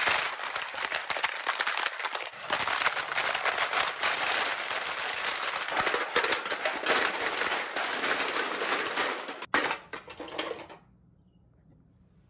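Crushed aluminum cans clattering down onto a concrete floor and onto each other as a pile builds: a dense, rapid rattle of thin metal hitting metal and concrete that cuts off suddenly near the end.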